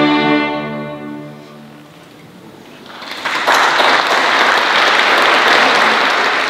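A string orchestra of violins, cellos and double basses holds its final chord, which fades away over about a second and a half. After a short lull, audience applause breaks out about three and a half seconds in and continues.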